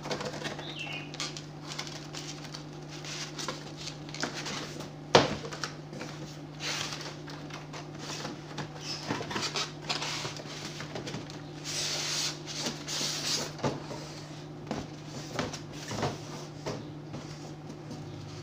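Cardboard box of a wireless microphone set being handled and opened: rustling, scraping and knocking of cardboard and packaging, with one sharp knock about five seconds in and a longer sliding scrape near two-thirds of the way through, over a steady low hum.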